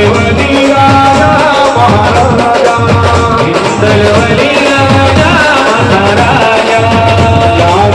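Indian brass band playing a wind-instrument melody over a steady, loud drum beat.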